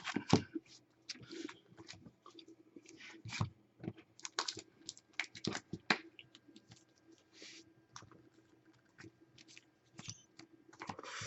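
Football trading cards being handled and flipped through by hand: short, irregular clicks and light rustles of card stock sliding against card stock.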